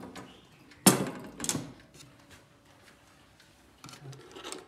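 Wooden case of a Jura pendulum wall clock being handled. A sharp knock about a second in is the loudest sound, with a second, smaller knock half a second later, then light clatter near the end. Faint ticking from the clock's movement runs underneath.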